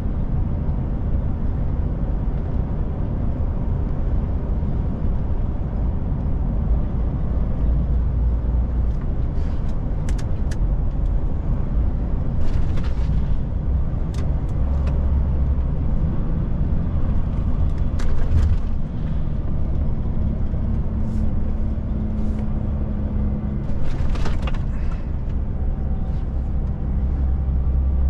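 Steady low drone of a DAF truck's diesel engine and tyre noise, heard inside the cab while driving, with a few brief clicks scattered through.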